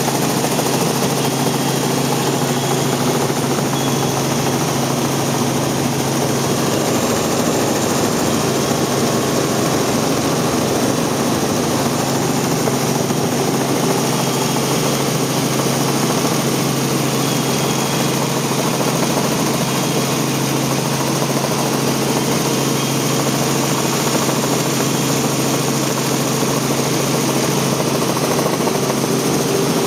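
Robinson R44 helicopter in forward flight, heard from inside the cabin: the six-cylinder Lycoming piston engine and rotors make a steady low hum under a broad, even rushing noise.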